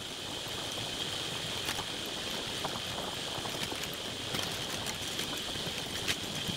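Bicycle rolling along a paved road: steady tyre and wind noise with small scattered rattles from the bike, over a constant high-pitched buzz.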